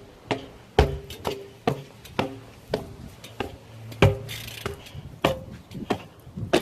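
Irregular series of sharp knocks or clacks, about two a second, some followed by a brief ringing tone.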